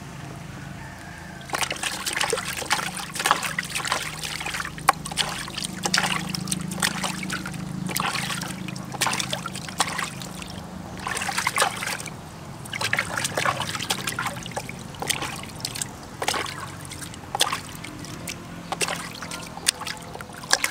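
Water splashing and trickling in a plastic basin as hands scoop it up and pour it over a baby monkey, in irregular bursts that start about a second and a half in.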